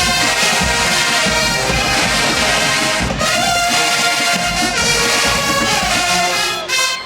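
Large marching band's brass section playing loudly in full ensemble; the playing breaks off briefly near the end.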